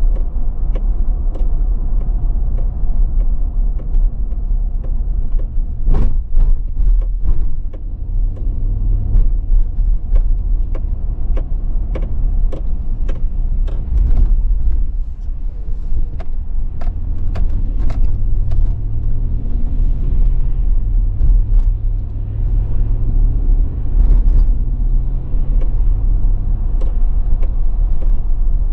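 Car cabin noise while driving: a steady low engine and road rumble with frequent small clicks and knocks.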